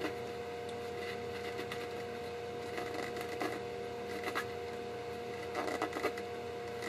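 Pocket knife blade scraping and shaving the rough hand-sawn edge of a polycarbonate tube in short, irregular strokes. Under it runs the steady hum of an electric fan.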